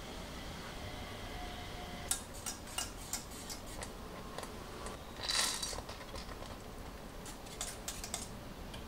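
A utensil stirring a thick custard-like mixture in an enamel saucepan, with irregular clicks and scrapes against the pan and a louder scraping burst about halfway through. A faint steady hum comes before the stirring starts.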